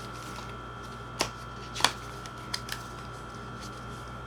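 A few sharp clicks and taps from handling an eyeshadow palette and its packaging, the loudest about a second and two seconds in, over a faint steady electrical hum.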